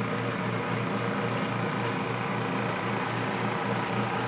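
Snow blower engine running steadily, a noisy even drone with a low beat pulsing about four times a second.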